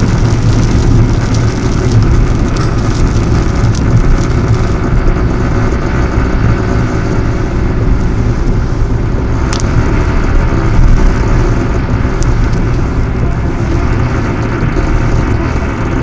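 Steady road noise inside a car's cabin at expressway speed on wet pavement: a low rumble of tyres and engine with a hiss of spray. The hiss thins out about five seconds in as the car passes under cover, leaving mostly the rumble.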